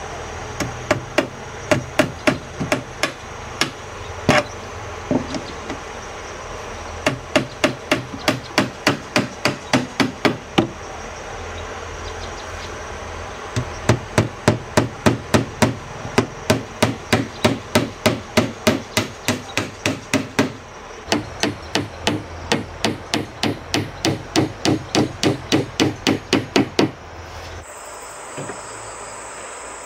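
Small hammer driving nails into a wooden door frame, in runs of quick, even blows about two to three a second, with short pauses between runs. The hammering stops shortly before the end.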